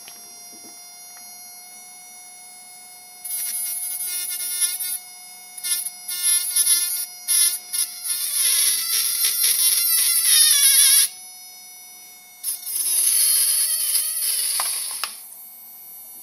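Small electric motors buzzing and rattling against a bent steel wire in a DIY sound-making rig: a faint steady whine, then loud buzzy chatters with wavering pitch in bursts, some short and two lasting about three seconds each.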